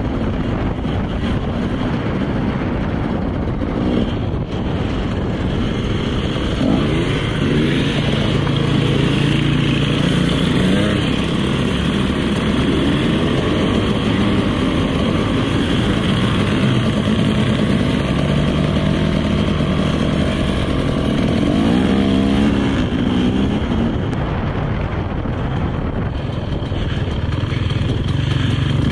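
Dirt bike engine running close by, revving up and easing off again and again so its pitch rises and falls.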